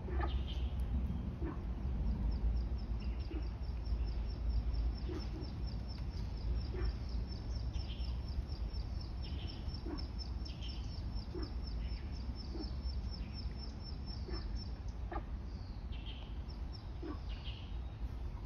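Birds calling, with short falling chirps about once every second or two. A rapid high-pitched trill starts a couple of seconds in and stops a few seconds before the end, over a steady low rumble.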